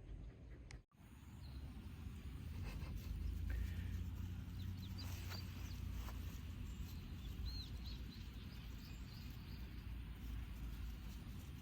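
Outdoor ambience: a steady low rumble of wind on the microphone with faint, scattered small-bird chirps.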